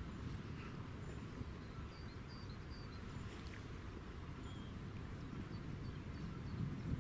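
Low, gusting wind noise on the microphone, with short bird chirps scattered faintly through it.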